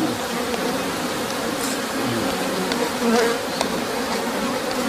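Many honey bees buzzing around an open hive that is full of bees: a steady, dense drone of overlapping wingbeats with wavering pitch.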